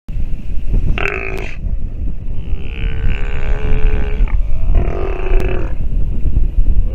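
Steller sea lion pup calling: three drawn-out calls, a short one about a second in, a long one from about two and a half seconds, and another near five seconds, over a steady low rumble.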